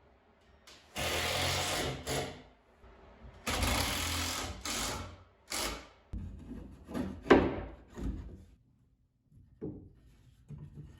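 Handheld power saw cutting in bursts: two longer runs of a second or so, then shorter ones, with the motor's pitch falling as it winds down about seven seconds in.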